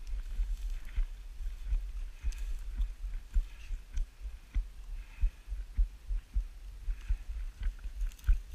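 Low, irregular thuds of a person walking, a few a second, carried through the worn camera, with dry grass and twigs brushing and snapping lightly as they push through scrub.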